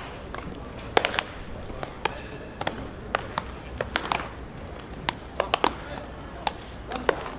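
Irregular sharp pops and cracks of baseballs at practice, several players' balls smacking into gloves and off bats in quick, uneven succession, over distant voices.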